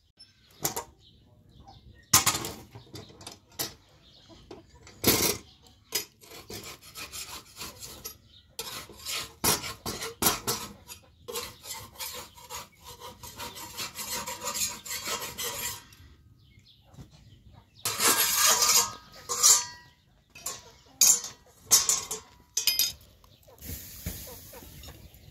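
Scraping and clattering as flatbread is worked and turned on a metal griddle (saj) over a wood fire, with chickens clucking at times.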